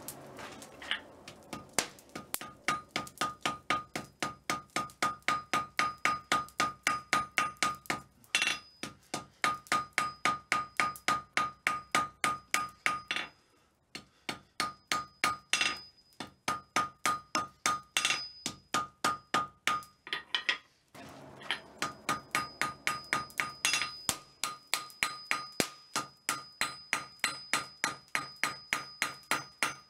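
Hand hammer striking white-hot bloomery iron on a steel anvil at about three blows a second, each blow with a bright ring from the anvil: forge-welding small pieces of bloom iron stacked into a billet. The hammering comes in three runs, with short breaks about a third and two thirds of the way through.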